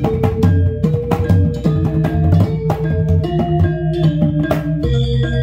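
Balinese kendang tunggal (single barrel drum) played in fast, dense strokes for barong ket dance music, over a stepping gamelan-style metallophone melody. The drum strokes thin out near the end while the melody carries on.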